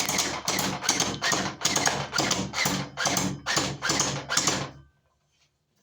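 Toy blaster firing in rapid automatic bursts, about three shots a second, each a sharp clacking stroke. It stops abruptly about five seconds in.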